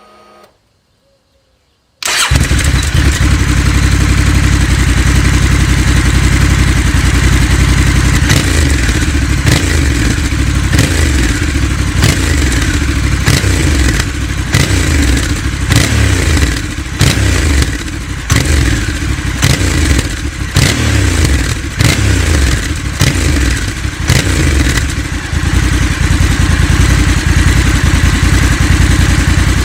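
Honda CRF1100L Africa Twin's parallel-twin engine running through a LeoVince aftermarket exhaust. The engine comes in abruptly about two seconds in and is revved again and again, its pitch rising and falling with each throttle blip.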